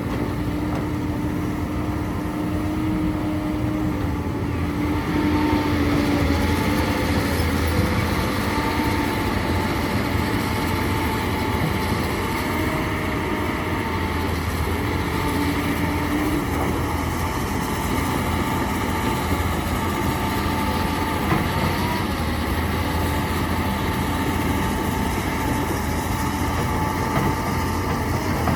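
Heavy construction machinery, a diesel excavator or dump truck engine, running steadily with a constant whining tone. It grows a little louder about five seconds in.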